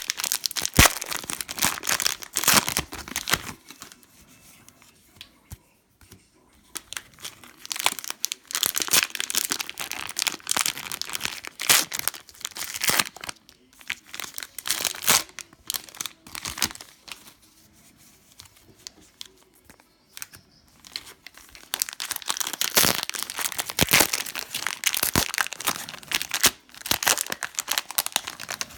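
Cellophane wrappers of Panini Prizm trading card cello packs being torn open and crinkled by hand, in stretches of several seconds with quieter pauses between.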